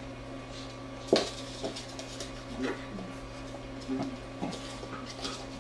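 Golden retriever and Beagle puppy playing on a hardwood floor: claws clicking and scrabbling, paws and bodies bumping, with one sharp knock about a second in and a few smaller knocks after it.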